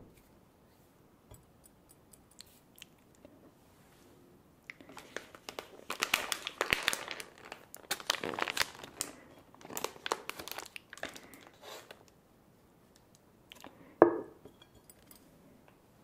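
Plastic packaging bag of Kyoho grape jelly crinkling as it is handled, a run of crackles from about five to twelve seconds in. A single sharp knock about fourteen seconds in is the loudest sound.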